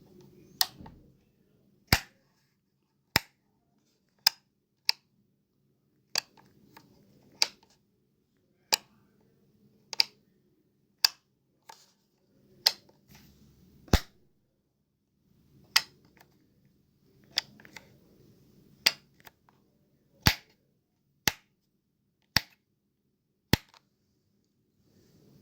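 A light switch being flicked on and off over and over: sharp single clicks about once a second, at a slightly uneven pace.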